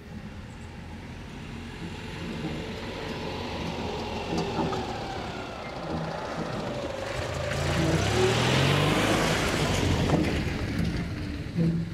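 Citroën 2CV AK400 van's small air-cooled flat-twin engine running as the van drives past over a muddy gravel track, with tyre noise on the gravel. It grows louder as it comes near, loudest around two-thirds of the way through, then eases as it passes.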